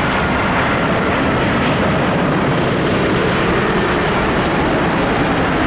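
Airbus A380-841's four Rolls-Royce Trent 970 turbofans passing low on final approach: loud, steady jet noise, with a faint high whine that fades early.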